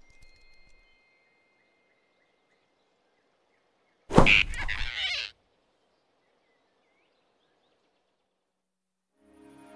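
A sudden loud swish-and-grab sound effect, about a second long, as the cartoon rabbit snatches the flying squirrel in his fist. Otherwise near silence, with soft music coming in at the very end.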